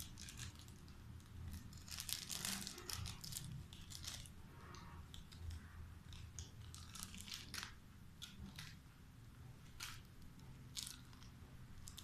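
Alexandrine parakeet biting and shaking a foil snack wrapper in its beak: irregular crinkling and rustling, busiest about two to three and a half seconds in, then in scattered short bursts.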